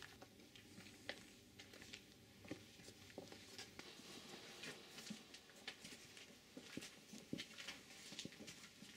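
Faint, irregular small clicks, taps and rustles of someone moving about quietly and handling things in a small room, with one sharper tap about seven seconds in.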